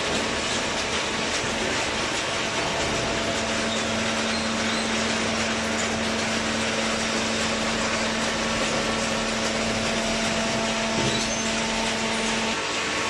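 Steady machinery noise, with a steady hum that comes in about two and a half seconds in and stops shortly before the end.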